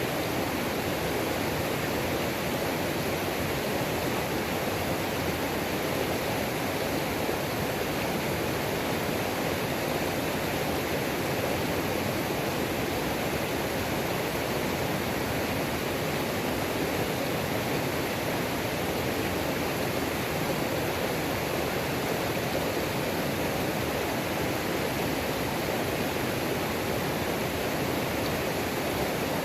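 Waterfall on a mountain creek, its water pouring and splashing in a steady, unbroken rush.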